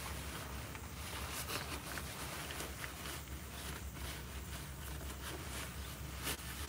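Rustling of a hooded jacket and handling noise on the phone's microphone as a person shifts about, over a low steady hum.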